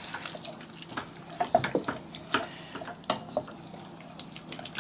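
A wooden spoon stirring a thick, wet meat-and-sauce mixture in a stainless steel saucepan, making irregular wet squelches and clicks.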